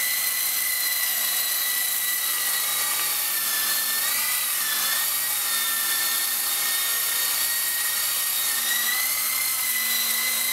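E-flite Blade CX3 Huey micro RC helicopter in flight: its electric motors and coaxial rotors make a steady high-pitched whine, with the pitch dipping briefly about four seconds in.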